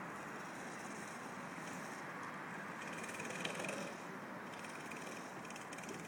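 Go-kart engine running at a distance, faint and steady under an even outdoor hiss.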